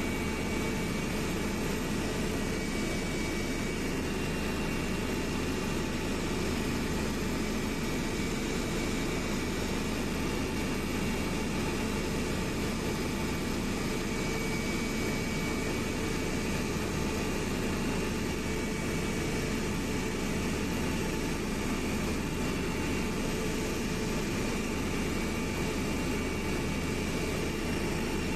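Steady engine drone and rushing air inside a passenger airliner's cabin in flight, with a few faint, steady whining tones over it.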